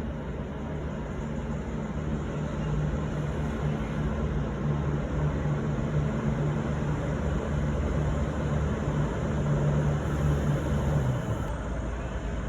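A V/Line VLocity diesel railcar train arriving at the platform. Its diesel engines give a steady low drone that grows louder as it comes in, then drops away about eleven seconds in.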